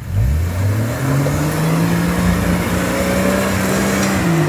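Older Jeep Cherokee SUV's engine revving up and held at high revs as it pulls up a steep, rutted mud climb, the revs falling away again about four seconds in.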